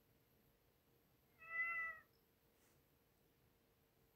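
Domestic cat meowing once, a short call of steady pitch about a second and a half in; a second meow begins at the very end.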